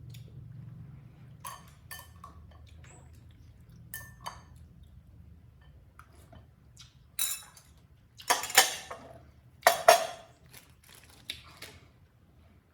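A plate clattering and clinking as a baby monkey knocks it about, in a string of sharp clatters; the loudest come about seven to ten seconds in.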